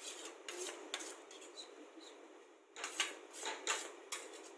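Light, irregular kitchen handling noise: dishes and utensils clicking and rustling as food is handled, busiest a little past halfway.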